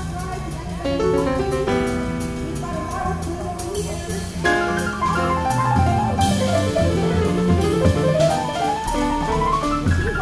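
Instrumental background music with piano and drums, with a quick rising run of notes in the second half.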